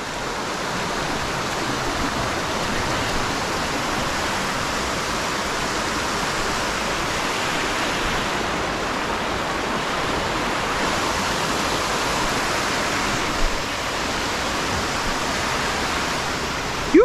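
Waterfall rushing: a steady, even roar of falling water close by.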